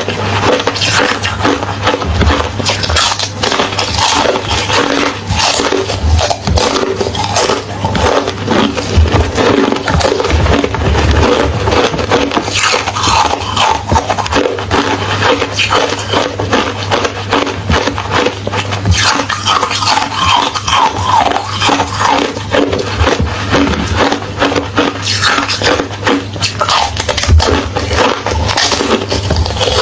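A person biting and chewing crunchy hollow ice close to the microphone: a dense, unbroken run of sharp cracks and crunches. A steady low hum sits underneath.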